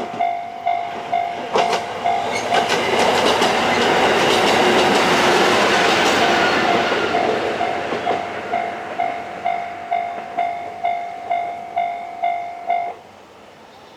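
Japanese level-crossing alarm dinging about twice a second while a diesel railcar passes over the crossing, its wheels clicking over the rail joints. The train's noise swells and fades, and the alarm cuts off about a second before the end.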